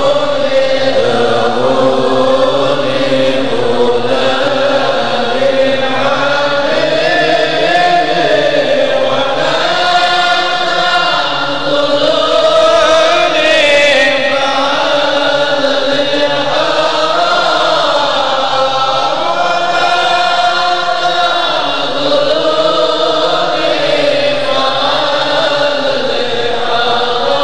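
Voices chanting a devotional syair (Islamic sung poem) in a slow, drawn-out melody, going on without a break and without any beat.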